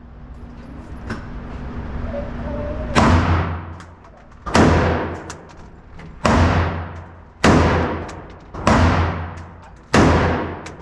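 Six semi-automatic rifle shots from a Smith & Wesson M&P Sport 3 AR-15 in 5.56 mm, fired one at a time, roughly a second and a half apart. Each loud crack rings out in a long echo. A lighter knock comes about a second in.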